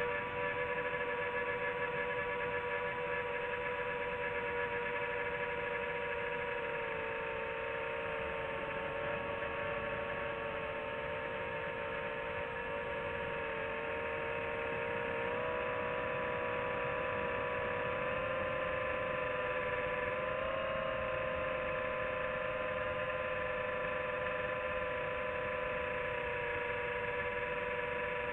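FPV quadcopter's brushless motors whining steadily, the pitch shifting slightly up and down a few times as the throttle changes.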